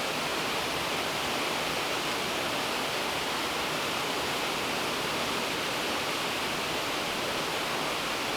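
Steady, unbroken rushing noise, even across high and low pitches, of the kind made by falling water.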